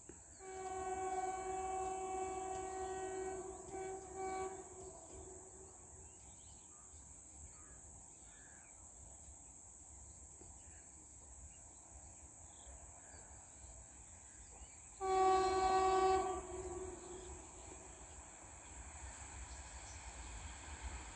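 Electric locomotive of an approaching express train sounding its horn: one long blast then two short ones in the first few seconds, and later a single louder blast of about a second and a half. A low rumble grows near the end as the train draws closer.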